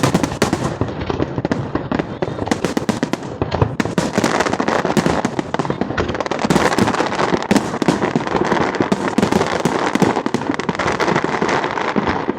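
Fireworks display: a dense, continuous barrage of bangs and crackling pops, many shells bursting in quick succession.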